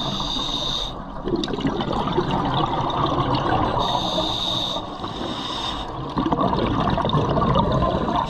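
Scuba diver breathing through a regulator underwater: a hissing inhale of about a second ends just after the start and comes again about four seconds in. Exhaled bubbles burble in between.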